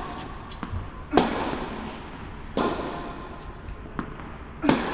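Tennis ball struck by rackets during a rally, three loud sharp pops with a ringing echo from the hall, and fainter ticks of the ball bouncing between them.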